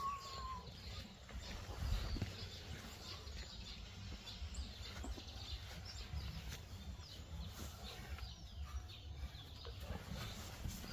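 Faint bird chirps scattered throughout over a low, steady rumble, with one short clear whistled note right at the start.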